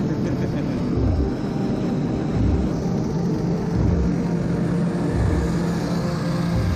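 Small engine of a motorized towing dog (mini snow-tractor) running steadily as it pulls sleds across the ice. A deep falling boom repeats about every second and a half underneath it.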